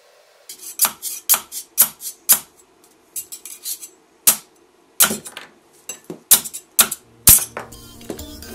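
Metal scraper blade knocking and scraping against a resin 3D printer's metal build plate as cured resin prints are pried off: a run of sharp, irregular clicks and short scrapes.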